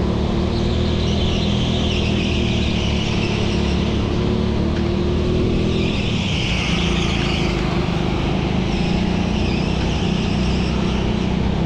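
Go-kart engine running steadily at racing speed, heard from on board the kart, with a brief dip in pitch about halfway through.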